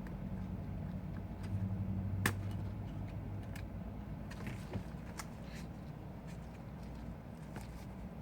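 Scattered small clicks and taps of repair tools on the iPhone 5's screws and internal parts, one sharper click about two seconds in, over a steady low hum.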